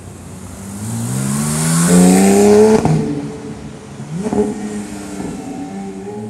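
Porsche 911 GT3's flat-six engine accelerating hard, its note climbing in pitch to a loud peak about two and a half seconds in, then dropping sharply at an upshift. It climbs again briefly with a few sharp cracks about four seconds in, then settles to a steadier, quieter note as the car drives off.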